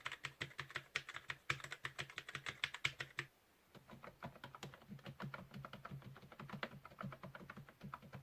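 Fast typing on an Alfawise K800 membrane keyboard with round typewriter-style keycaps, a quick run of soft key clicks. The typing pauses briefly about three seconds in, then resumes. The keys are quiet, "super silent" as membrane keys.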